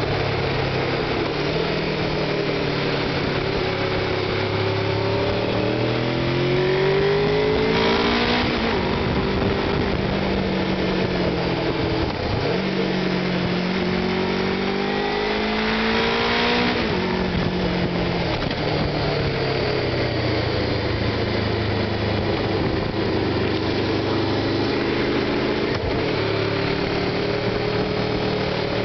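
Honda VFR800's V4 engine pulling through a series of bends, its pitch rising and falling with the throttle; it climbs twice to a peak, about eight and sixteen seconds in, before dropping away.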